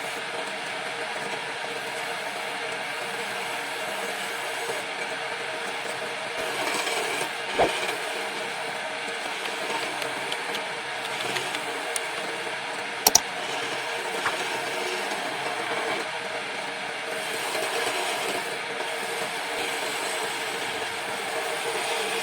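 Wood lathe running steadily, with a sharp knock about seven and a half seconds in and a quick double click about thirteen seconds in.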